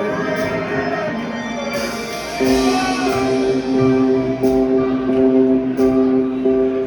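Live pop band playing an instrumental passage on guitars and bass, with light cymbal strokes. It gets louder about two and a half seconds in, where a held low note comes in.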